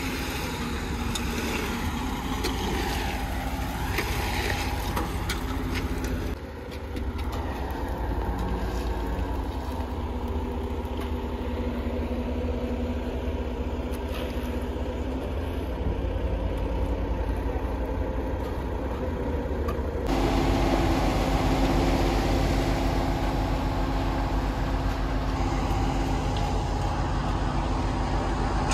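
Heavy truck engine running steadily, the sound of the machinery that feeds the concrete bucket during a concrete pour. The sound shifts abruptly twice, once about six seconds in and again about twenty seconds in, and is louder after the second change.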